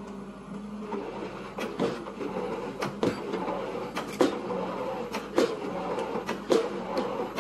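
Excavator-mounted pile-driving hammer striking a precast concrete pile, sharp knocks roughly once a second, starting about a second in. The excavator's diesel engine runs steadily underneath.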